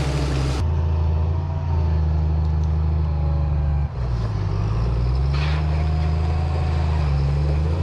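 Large engine of heavy machinery running under load, its pitch dipping a little past the midpoint and climbing again; the sound changes abruptly about half a second in.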